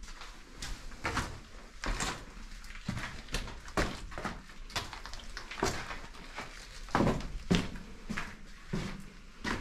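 A series of irregular knocks and scrapes, about one or two a second.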